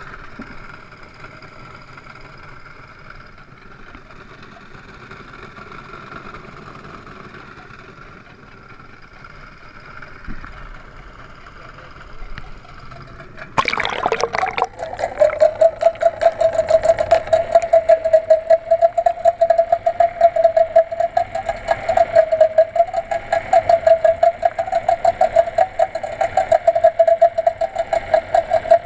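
Muffled noise from a camera at the water's surface gives way, about halfway through, to the sound heard underwater: a steady mid-pitched hum that wavers slightly, with a fast run of loud clicks.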